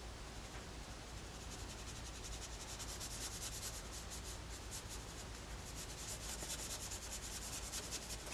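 Faint scratchy rubbing of a pen tip being worked over sketchbook paper in quick, repeated strokes, blending colour into the drawing.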